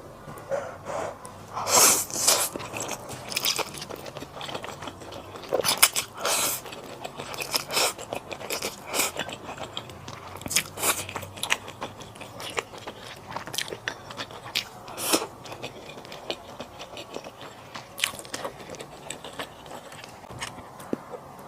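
Close-miked eating sounds: a person chewing and biting food, with irregular sharp clicks and smacks and a few louder bites.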